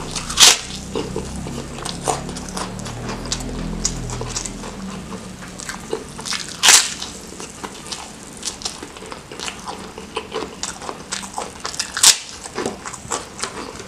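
Crisp crunching bites into a kerupuk cracker topped with rice, with close, wet chewing and small crackles in between. There are three loud crunches, about half a second in, about seven seconds in and near the end.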